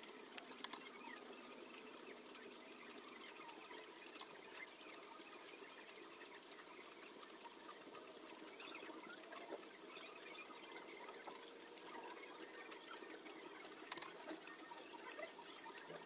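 Faint, steady hiss like trickling water, with a few soft clicks about a second in, about four seconds in and near the end.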